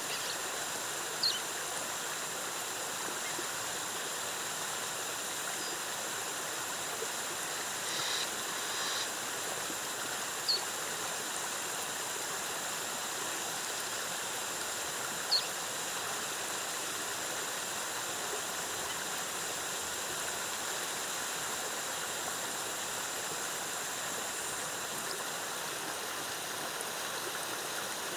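Waterfall cascading in a rainforest, a steady even rush of falling water. A few short high chirps stand out briefly about a second in, near the middle and again a little later.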